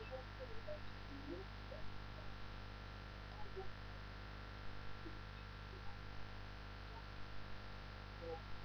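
Steady electrical mains hum and hiss picked up by a webcam microphone, with faint, scattered short sounds in the background.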